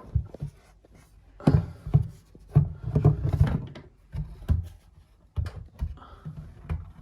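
A run of irregular dull knocks and bumps in a small room, the heaviest cluster in the middle.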